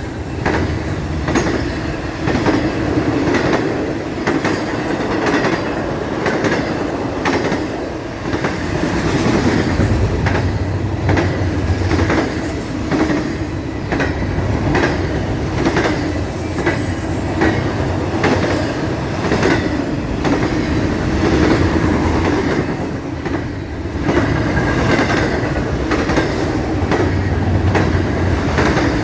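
CSX intermodal freight train cars rolling past, their wheels clicking over the rail joints in a steady clickety-clack above a continuous rumble.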